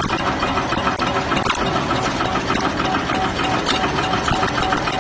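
Wet wipes making and packing machine running: a steady mechanical clatter with a fast, regular ticking.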